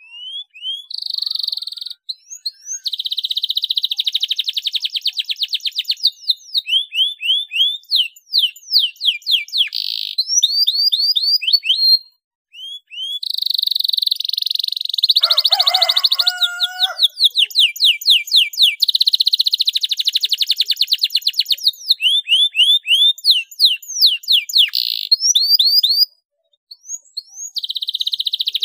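Domestic canary singing a long song of fast rolling, rattling trills alternating with runs of quick rising chirped notes, broken by short pauses about twelve seconds in and near the end.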